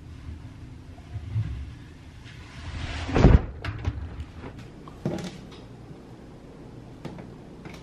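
Front-loading clothes dryer door swung shut with a loud thump about three seconds in, after a short rising swish. Lighter knocks and clicks follow, as hands go to the control panel.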